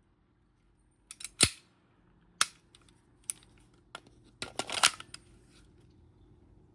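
Sharp mechanical clacks from a gas blowback airsoft Glock 18C pistol, coming irregularly: a few about a second in, single ones after that, then a quick run of them near the end.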